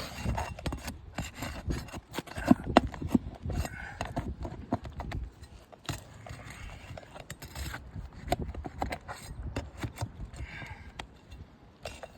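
Roofing nails being worked loose from asphalt shingles with a hand tool: an irregular run of sharp clicks and knocks, the loudest about two and a half to three seconds in.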